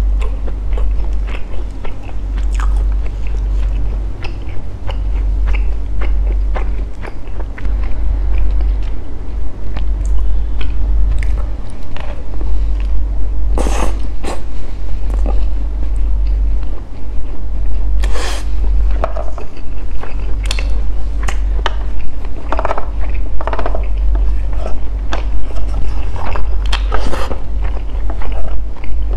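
Close-miked chewing of soft durian sticky rice in sweet coconut sauce: wet mouth clicks and smacks, with a few louder sharp sounds from the wooden spoon and mouth, over a steady low hum.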